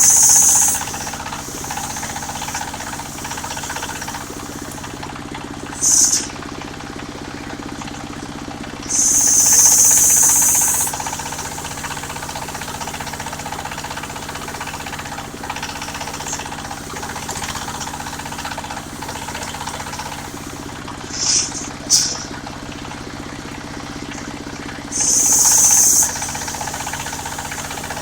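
Engine-driven portable circular sawmill running steadily with a constant drone. Five short, loud bursts of high hissing noise cut in: the longest is near ten seconds in, and the others come at the start, around six seconds, around twenty-one to twenty-two seconds, and near twenty-five seconds.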